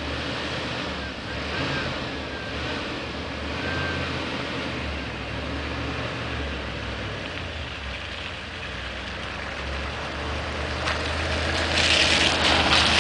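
Pickup truck engine running on wood gas (producer gas), a steady low drone as the truck drives up a gravel lane, growing louder as it approaches; near the end the crunch of tyres on gravel comes in close.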